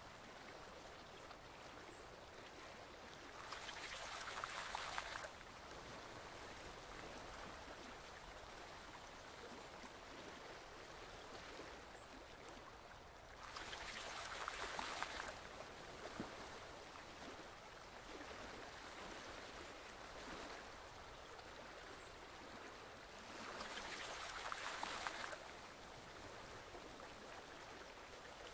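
Forest stream flowing steadily, with a louder rush of water three times, about ten seconds apart.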